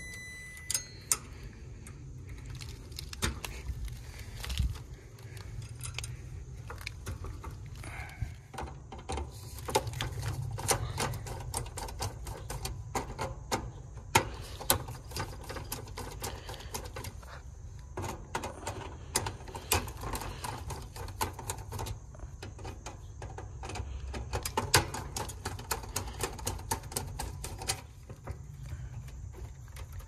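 Many small clicks and metallic rattles of hand tools, spade terminals and wires being handled at an air-conditioner condenser's contactor and capacitor, over a steady low rumble. A short electronic beep ends about a second in.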